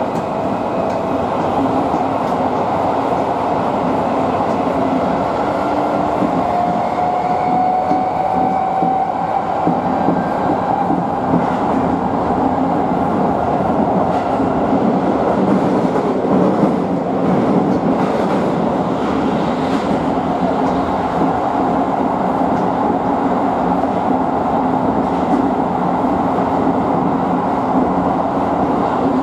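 Running noise recorded inside a Tokyo Metro 16000 series car, with its Mitsubishi IGBT-VVVF inverter and permanent-magnet synchronous motors. As the train pulls away, a rising electric whine from the traction equipment climbs in pitch, then fades about ten seconds in. After that comes a steady rumble of wheels on rail through the tunnel.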